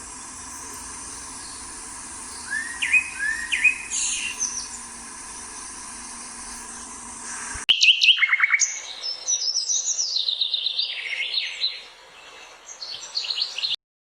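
Recorded outdoor nature ambience: a steady hiss with a few short rising bird chirps, then, after an abrupt change about 8 seconds in, a busy chorus of songbirds with rapid falling trills.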